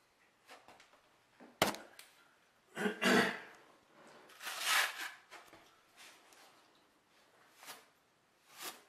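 Steel trowels scraping and clacking against each other as thin-set mortar is loaded and worked onto the edge of a shower base: a series of short scrapes and knocks, with a sharp clack about a second and a half in and a longer scrape around the middle.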